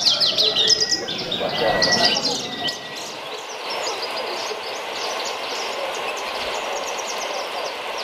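Javan bush lark (branjangan) singing a shrill, rapid run of high chirps and trills, loudest for the first three seconds and then fainter.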